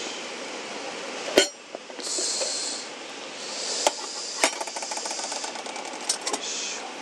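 Knocks and clinks of metal camp cookware, with a sharp knock about a second and a half in and lighter clicks and ticks later, over short stretches of hiss.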